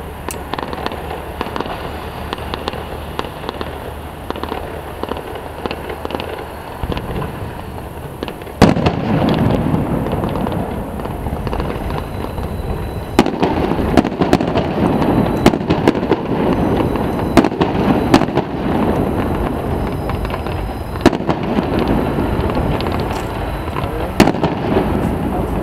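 Fireworks going off: steady crackling and popping that turns much louder and denser about nine seconds in, with sharp single bangs every second or two after that.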